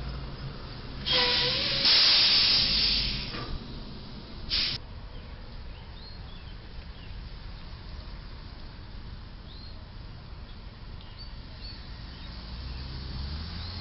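A loud hiss of escaping air lasting about two seconds, followed by a brief second hiss. After that, a low steady traffic rumble with a few faint bird chirps.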